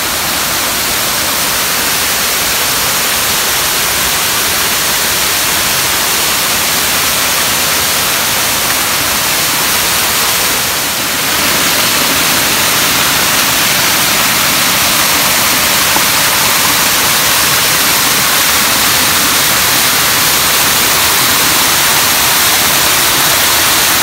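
Water rushing steadily over rocks in a forest stream cascade and waterfall.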